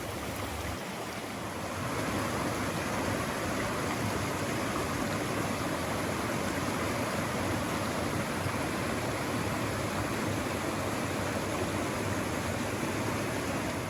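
Swollen spring creek rushing over rocks in rapids: a steady rush of water that grows a little louder about two seconds in.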